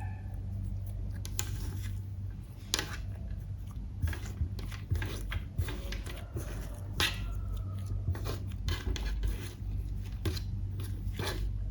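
Clear slime being worked by hand, with irregular sticky clicks and pops.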